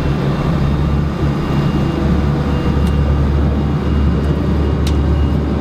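Fishing boat's engine running steadily underway: a low drone with the rush of wind and water over it, and two short clicks about three and five seconds in.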